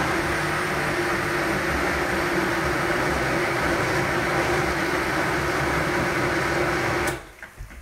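Countertop blender motor running steadily at full speed, puréeing cooked lentils with onion, garlic and cream into a velouté; it cuts off suddenly about seven seconds in.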